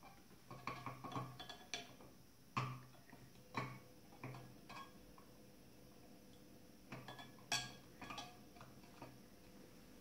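Alligator-clip leads being fastened onto copper plates standing in a glass beaker of water: scattered small clicks and clinks of metal on metal and glass, some in quick clusters.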